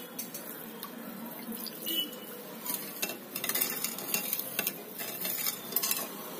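Steel spoon stirring sugar into warm milk in a glass bowl to dissolve it: steady stirring with scattered light clinks of the spoon against the bowl.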